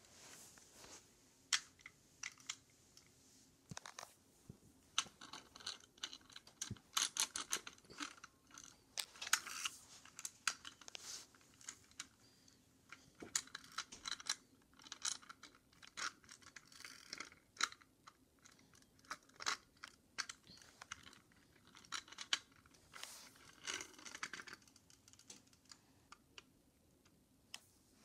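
Toy cars being handled and moved about by hand: irregular clicks, taps and short scraping sounds.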